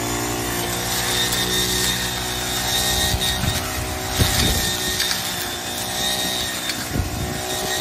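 Backpack petrol brush cutter running steadily at high speed while its blade cuts through dense vines and weeds, with a few short low knocks from about three seconds in as the blade strikes thicker growth.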